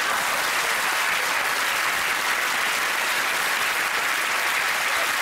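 A large studio audience applauding, a steady, even clapping.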